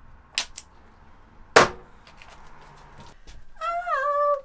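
Painter's tape being handled: two small clicks, then one sharp snap about a second and a half in. Near the end a man starts singing in a high voice, the notes sliding downward.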